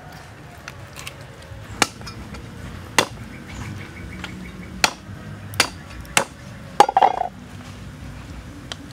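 Sharp, irregular knocks and taps of handling food and utensils on a wooden chopping block while a whole duck is stuffed, about six in all. The loudest comes about seven seconds in, with a brief ringing tone under it, over a low steady background hum.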